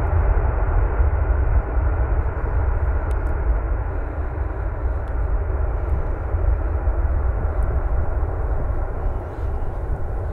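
Steady jet engine noise from a twin-engine airliner rolling out along the runway after landing: an even, toneless rumble, heaviest in the low end.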